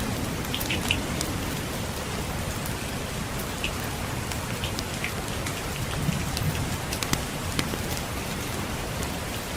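Steady rain falling on a surface, with scattered sharp crackles and pops from a burning wood fire.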